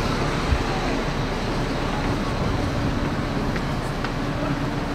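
Steady rumble of traffic noise, with a single short thump about half a second in.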